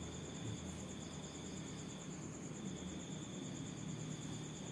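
Crickets trilling steadily in a high, rapidly pulsing note, with a second, lower insect trill that breaks off about two seconds in and starts again half a second later.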